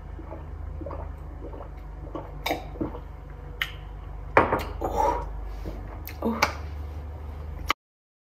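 Drinking from a glass: sips and swallows, with short clinks and knocks as the glass is handled, over a steady low hum. The sound cuts off abruptly near the end.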